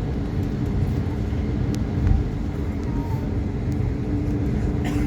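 Steady engine hum and rumble inside the cabin of an Airbus A320neo airliner on the ground before takeoff, with a few faint clicks.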